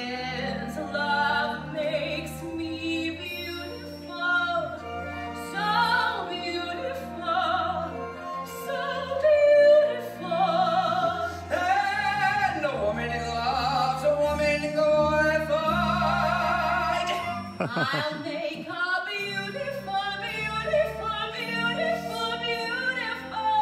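A musical theatre song performed live: a singer with a wide, operatic vibrato over a pit orchestra's sustained chords. The accompaniment drops out briefly about two-thirds of the way through.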